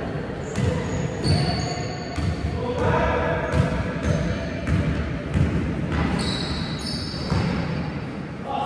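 Basketballs bouncing on a wooden sports-hall floor during play, a run of sharp thuds. Players' trainers squeak on the boards and voices call out across the court.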